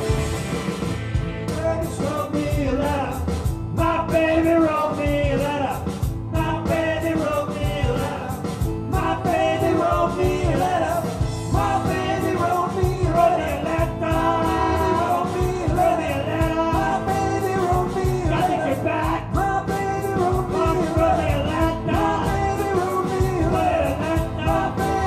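A rock band playing live, with acoustic guitar, electric guitar, bass guitar and a drum kit. A lead vocal comes in about two seconds in and sings over the band.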